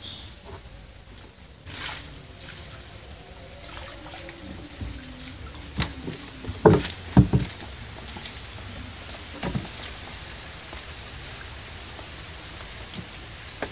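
Water sloshing and dripping as a wet collapsible net shrimp-and-fish trap (lú) is hauled out of a canal onto a wooden boat. A few sharp knocks on the boat stand out, loudest between about six and seven and a half seconds in, with another near nine and a half. A steady high hiss runs underneath.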